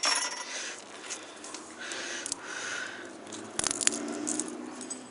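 Dry leaves and twigs crackling and rustling on a small campfire, with a cluster of sharp snaps about three and a half seconds in.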